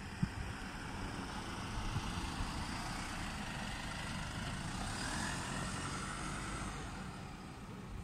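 Steady low rumble of a motor vehicle engine running, with a faint whine rising and falling about five seconds in.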